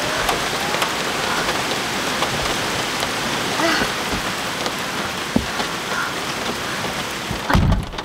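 Heavy rain falling steadily on a car, heard from inside the vehicle, with one dull thump near the end.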